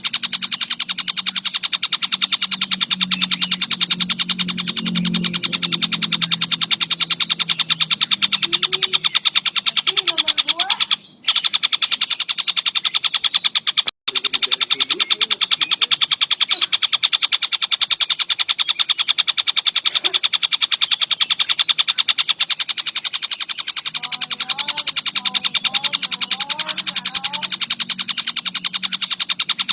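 Tengkek buto kingfisher calling in a fast, dense, nonstop chatter of high notes, broken by two very brief dropouts about a third and halfway through.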